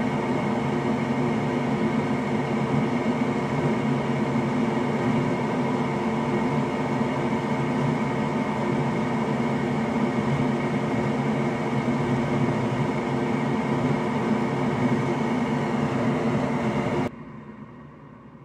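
Steady machine hum with a rush of air and several held tones, like an electric blower or fan running; it stops abruptly near the end.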